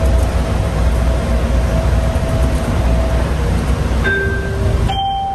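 Ride noise inside a Bombardier Innovia APM 100 people-mover car running along its guideway: a steady low rumble with a faint whine. Near the end the rumble eases, and two short electronic tones sound, like an onboard chime.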